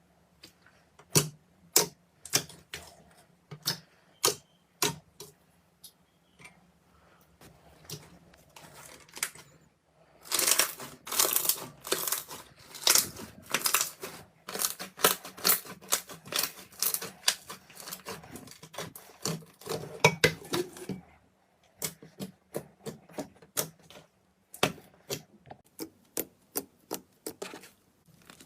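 Slime being squeezed and poked, giving a run of sharp pops and crackling clicks, densest from about ten to twenty seconds in.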